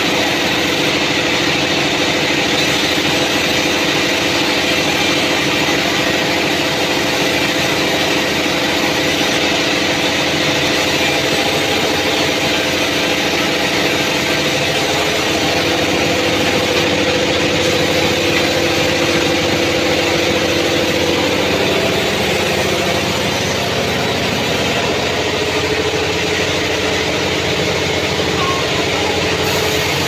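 Band sawmill running steadily with no log in the cut: a continuous loud mechanical drone with a few humming tones that shift in pitch past the middle.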